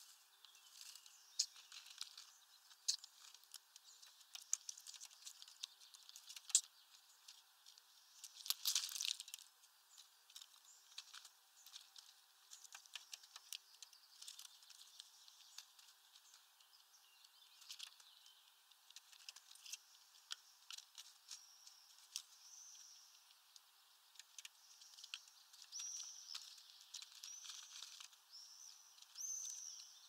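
European starlings at a feeder: scattered sharp taps and scratches from beaks and feet on the feeder, with a short flurry of wings about nine seconds in. In the second half come short repeated calls, about one a second.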